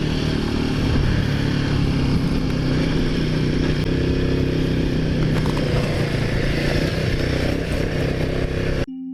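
Motorcycle engine running steadily under way, with a broad rush of wind noise over it. Near the end it cuts off abruptly and soft sustained music begins.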